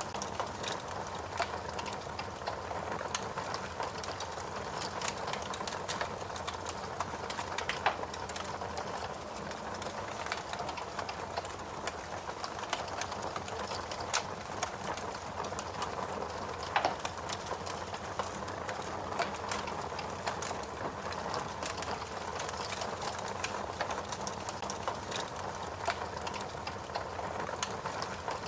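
Wood fire crackling steadily, with many small crackles and two louder pops, about 8 seconds and 17 seconds in.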